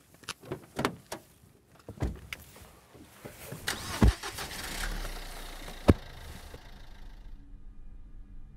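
Car doors thudding shut and a car engine starting, with several thuds and a sharp knock about six seconds in. Near the end the sound drops to a faint steady hum.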